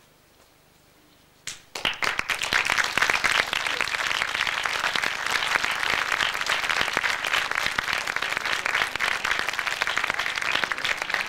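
A theatre audience applauding: after about a second and a half of near silence the clapping starts suddenly and keeps up steadily, marking the end of a scene.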